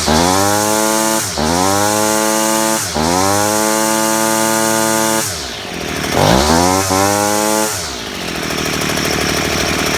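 Husqvarna two-stroke string trimmer engine revved hard in repeated throttle bursts, each rising sharply and held a second or more, dropping back to a lower idle between bursts and near the end. It runs at full power with its clogged muffler spark arrester screen cleaned and its spark plug wire redone.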